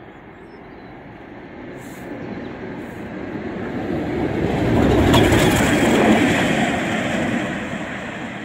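A Class 50 diesel locomotive passes close by, its English Electric V16 engine and wheels on the rails growing louder to a peak about five seconds in and then fading as it draws away. There are a few sharp clicks from the wheels at the loudest moment.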